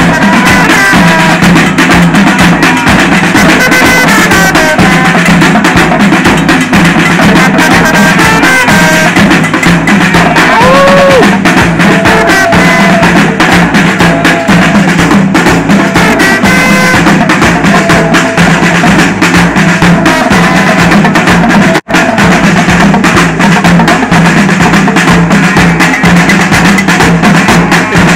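Loud music driven by drums and percussion, dense and unbroken except for a momentary cut about three-quarters of the way through.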